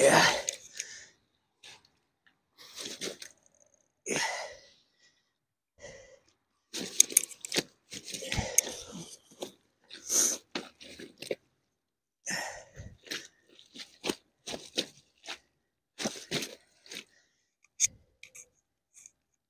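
Irregular crunchy rustling and slapping bursts of a freshly caught carp thrashing while being handled at the bank, with hands and clothing rustling against it.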